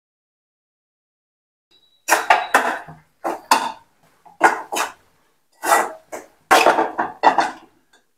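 Spatula scraping and knocking against a pan while stirring a thick dry-fish thokku, in a quick run of short strokes starting about two seconds in.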